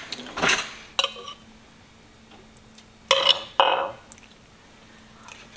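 A metal spoon scooping chili from a ceramic bowl: a light clink about a second in, then two short scrapes of the spoon against the bowl just after three seconds.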